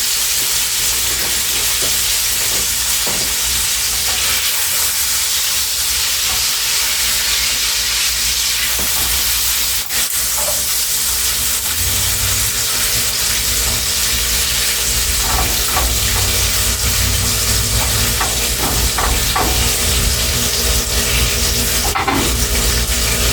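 Sausage, onion, bell pepper and garlic sizzling in a frying pan over lowered heat: a steady, even hiss, with occasional clicks and scrapes from a utensil stirring the pan.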